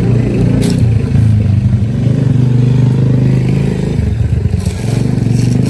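A motor vehicle engine running close by, a steady low hum that changes about four seconds in.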